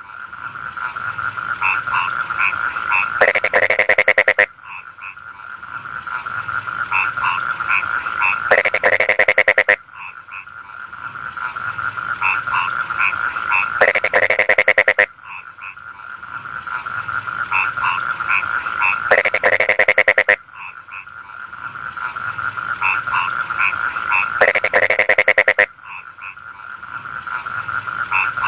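A chorus of rice-field frogs croaking: a steady trilling with short repeated notes, broken about every five seconds by a loud burst of rapid croaks lasting about a second, five times over.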